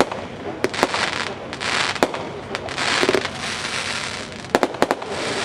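Hammer Time, a 200-gram consumer fireworks cake, firing shot after shot: a series of sharp bangs, a pair of them close together near the end, with a loud hiss from the breaks between them.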